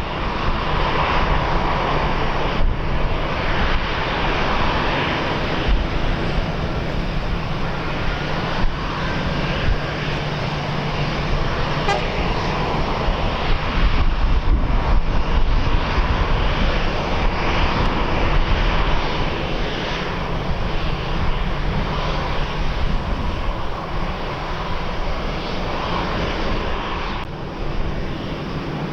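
Airliner's engines running steadily at an airport: continuous engine noise with a faint steady whine, swelling and easing slightly.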